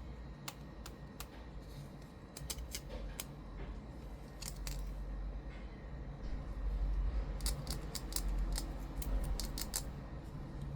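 Crisp clicks and snips from plastic toy packaging and parts being handled and cut, in short clusters that are busiest in the second half, over a low handling rumble.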